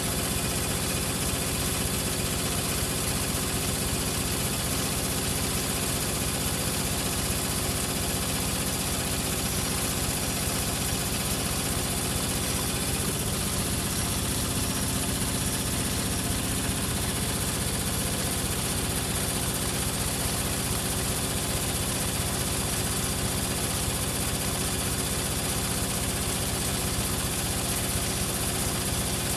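Hoover Logic washing machine running at a steady pitch, its drum spinning with a constant motor hum and whine.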